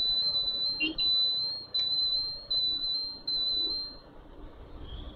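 A shrill high-pitched tone held at one steady pitch for about four seconds, broken by a few brief gaps, then stopping.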